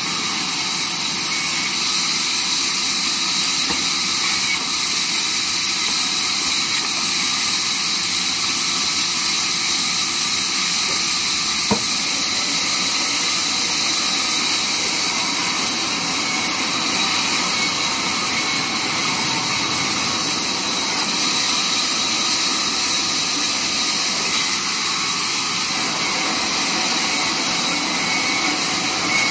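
Large vertical band saw running and cutting through a wooden slab fed along its table: a steady, continuous high hiss of the blade in the wood over the machine's running noise, with one sharp knock about twelve seconds in.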